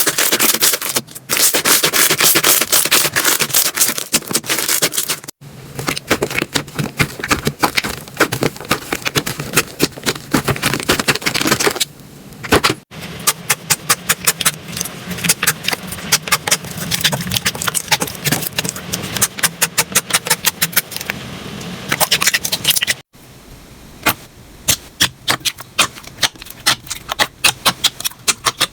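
Slime being squeezed, poked and pressed by hand, making dense, fast crackling, popping and sticky clicking. It comes as a string of short clips that cut in and out abruptly several times.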